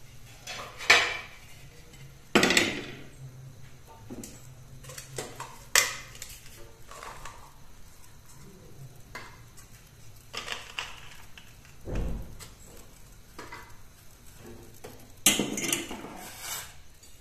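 Steel kitchenware handled on a gas stove counter: scattered clanks and clinks as a steel pot, an iron griddle and steel tongs are set down and picked up, with one duller thump about two-thirds of the way through.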